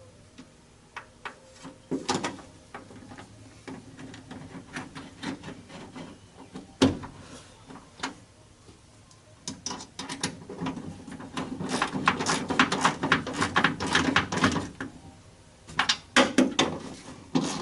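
Hand tool clicking in quick runs as bolts are tightened inside a car door, with scattered taps and one sharp metallic knock about seven seconds in.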